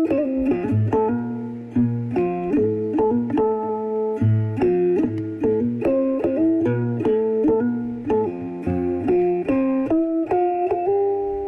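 Khse diev (sadiev), the Khmer gourd-resonated stick zither, playing an instrumental passage: a steady run of plucked notes with lower notes sounding beneath the melody.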